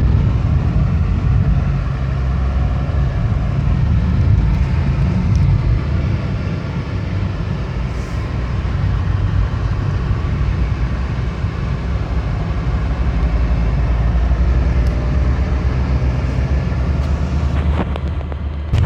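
Volkswagen up! 1.0 TSI three-cylinder turbo petrol engine running steadily with a low, even rumble.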